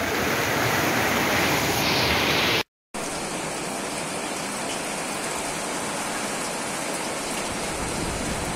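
Muddy floodwater rushing down a street in a steady roar of running water. A brief dropout about three seconds in, then a steady hiss of heavy rain and running floodwater.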